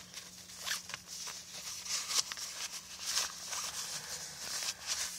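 Irregular rustling and crinkling of packaging being handled as a new tobacco pipe is unwrapped.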